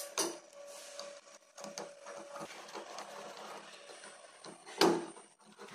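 Plastic top cover of a Notifier fire-alarm isolator module being worked onto its ceiling-mounted base with a screwdriver and fingers: scraping and light clicks, then one loud click near the end.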